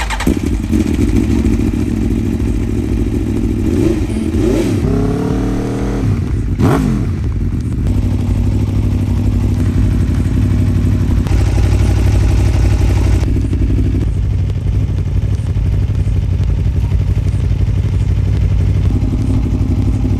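Aprilia Tuono V4 1100 Factory's V4 engine through an Akrapovič end can, starting up. It is revved in a few quick rising and falling blips between about four and seven seconds in, then settles to a steady idle.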